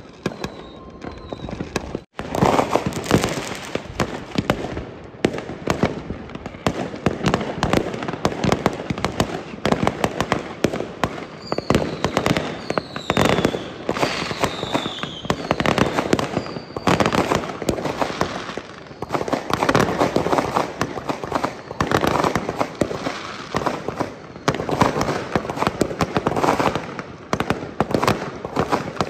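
Many fireworks going off at once: a dense, continuous barrage of bangs and crackling from aerial rockets and ground-level fireworks, with several falling whistles between about twelve and seventeen seconds in. There is a brief break about two seconds in.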